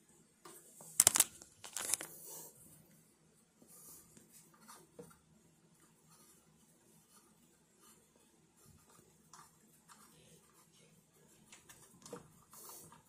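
Handling noise from hands fitting parts on a mic mount: two short, sharp rustling scrapes about a second and two seconds in, then scattered faint clicks and rustles.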